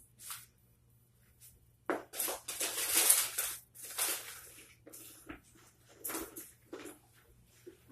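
Rustling and crinkling from rummaging through a bag, loudest for a couple of seconds about two seconds in, with shorter rustles near the end.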